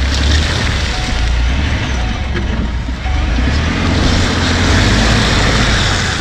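Ford F-150 pickup's engine running hard under load while its mud-caked wheel spins in deep mud, with a loud rush of tyre and mud noise; the truck is stuck. The sound drops away sharply at the very end.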